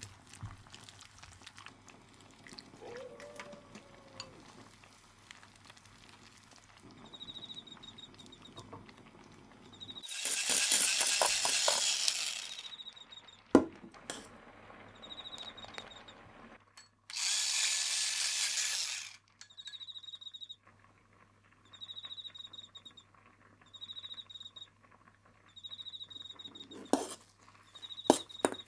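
Kitchen cooking sounds: scattered clinks and knocks of utensils, two loud bursts of hissing noise lasting two to three seconds each, and in the second half a high-pitched beep repeating about once every second and a half.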